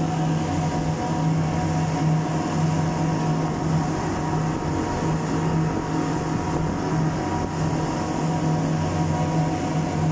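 Three outboard motors running steadily at speed on a fast boat: a constant low engine drone over the rush of the wake's water.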